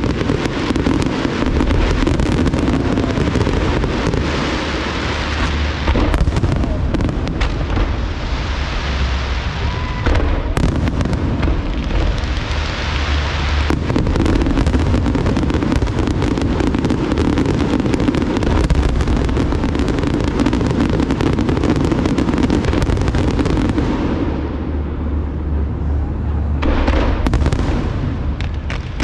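A large aerial fireworks display: a continuous barrage of shell bursts and crackling, many going off in quick succession. The crackling thins out about three-quarters of the way through, then another loud salvo goes off near the end.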